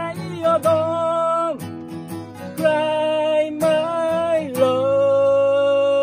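A man singing a slow ballad to his own strummed acoustic guitar, holding long notes, the last one held for about two seconds near the end.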